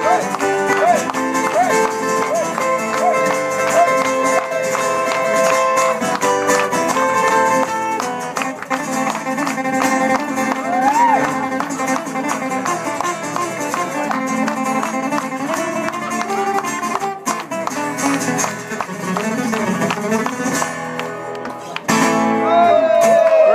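Two acoustic guitars playing a lively, plucked instrumental. Near the end the sound gets louder, with voices rising over the guitars.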